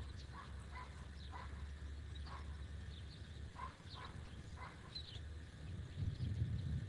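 Outdoor field ambience: scattered short bird chirps over a steady low rumble, which swells near the end.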